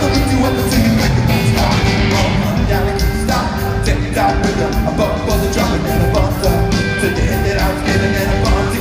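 Rock band playing live in an arena, heard from the crowd: a steady drumbeat under a sung lead vocal and full band.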